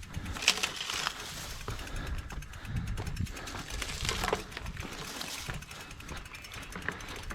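Mountain bike being pushed uphill on foot: irregular scuffs, rattles and small clicks, over a low rumble of wind on the microphone.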